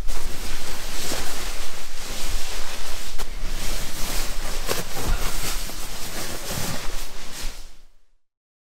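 Nylon down sleeping bag and clothing rustling loudly and continuously as a person climbs into the bag, with scattered sharper crinkles. It fades and cuts off to silence near the end.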